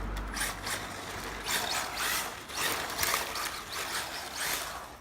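HPI RS4 Sport RC car with a newly fitted brushless motor, its motor and gears whirring in several short bursts as it is driven.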